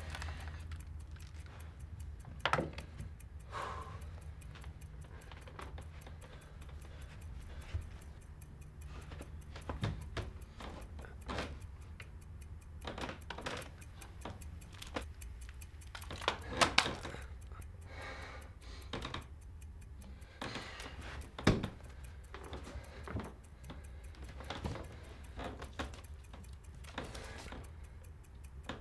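Wall clock ticking over a low steady hum, with scattered sharp clicks; the loudest is a close pair of clicks just past the middle.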